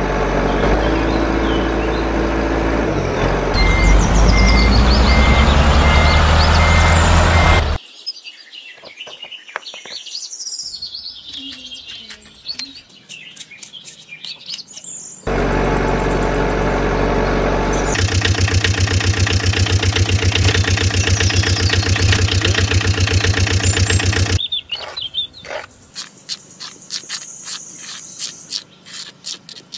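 Large truck engine running, its pitch rising as it revs, cutting off abruptly, then starting again for a second long stretch. In the quieter gaps between, birds chirp and sharp clicks of gravel and sand sound.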